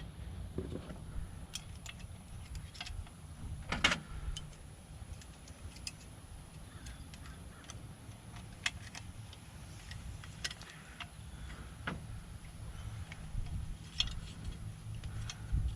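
Scattered small metallic clicks and taps of keys and lock parts being handled during a lock rekey, with one louder click about four seconds in, over a steady low rumble.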